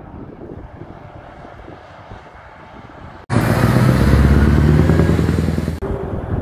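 Low rumble of distant motorway traffic. About three seconds in, the sound cuts abruptly to a much louder heavy truck engine running with a deep, steady drone. It stops suddenly after about two and a half seconds, and the traffic rumble returns.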